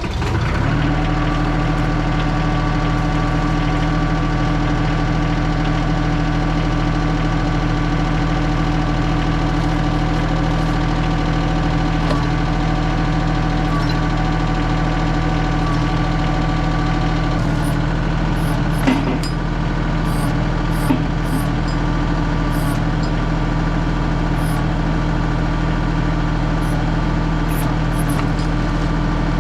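Bad Boy 4035 compact tractor's diesel engine starting up and then running steadily at idle. A couple of short knocks sound about two-thirds of the way through.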